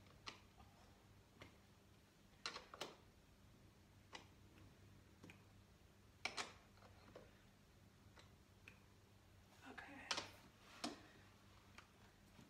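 Faint, irregular clicks and taps of a skate tool working the axle nuts and wheels of a quad roller skate, as the wheels are loosened to spin freely.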